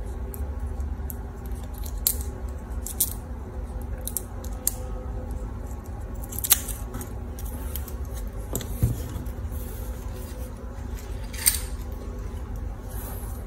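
Scissors snipping a flattened plastic drinking straw: about six short, sharp snips at irregular intervals over a steady low hum.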